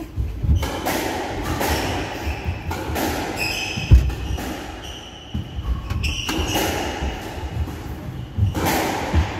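Squash rally: the rubber ball cracking off the rackets and thudding against the court walls, the loudest hit about four seconds in. Short high squeaks from shoes on the wooden court floor come in between.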